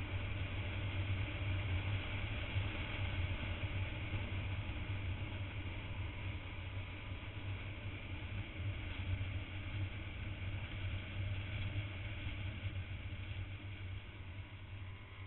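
Steady rush of wind on the microphone of a camera riding on a moving motorcycle, with road and engine noise underneath, easing a little near the end.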